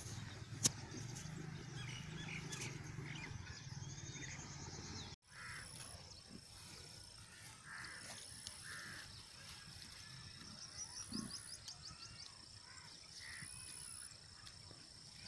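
Faint farmyard ambience: birds chirping with short calls and a quick trill, over a steady high-pitched insect drone. A low drawn-out hum fills the first few seconds and cuts off abruptly about five seconds in.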